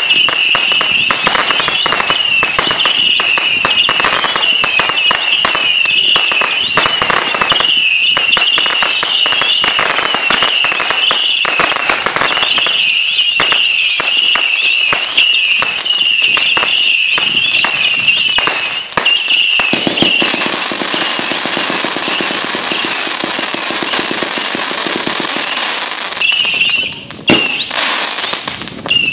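Consumer fireworks going off: a dense run of rapid crackling pops with a high wavering whistle over it, thinning about twenty seconds in to a steady hiss, with a sharp crack near the end.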